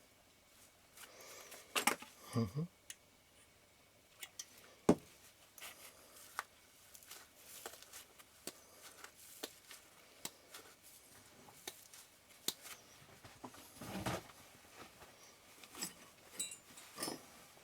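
Small metal lens parts and tools being handled on a workbench during a lens disassembly: scattered light clicks, ticks and scrapes, with one sharper knock about five seconds in.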